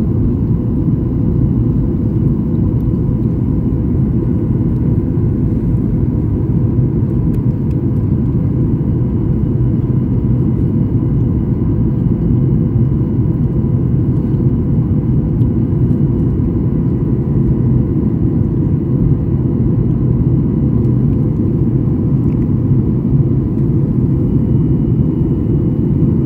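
Steady low rumble of a jet airliner's engines and rushing air, heard from inside the passenger cabin in flight, with a faint constant whine over it.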